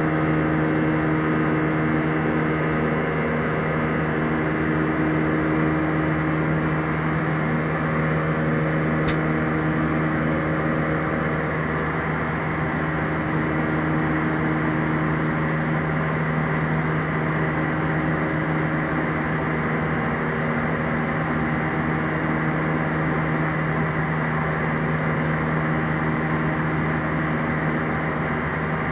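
Airbus A320's CFM56-5A turbofan engines heard from inside the cabin, running steadily: an even drone with a strong low buzzing tone.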